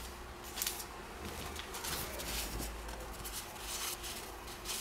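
2013 Topps Heritage baseball cards being handled and slid against one another, with soft, scattered card-stock rustles and swishes.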